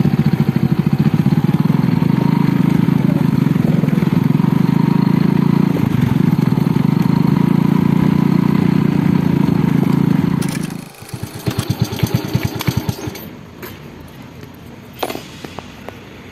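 Small motorcycle engine running steadily under way, then dropping to a slow, uneven idle about ten seconds in and shutting off a couple of seconds later. A few small clicks follow.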